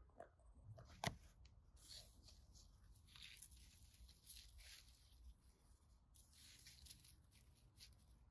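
Faint crackling rustle of dry actinidia leaves and soil as a cat rubs its face against them, coming in uneven spells, with one sharp click about a second in.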